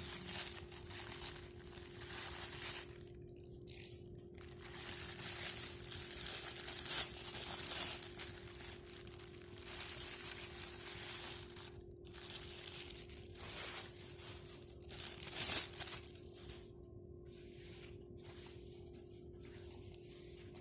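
A plastic courier mailer bag being cut, torn open and crinkled by hand in irregular rustling bursts. It settles to quieter rustling of the white foam wrapping near the end, over a faint steady hum.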